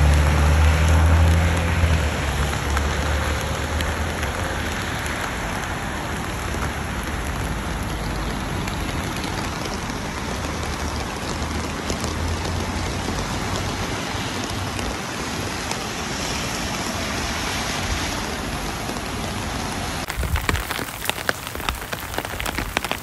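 Steady rain falling. A vehicle's low rumble fades out in the first couple of seconds. Near the end the sound shifts to close, crisp pattering of individual drops.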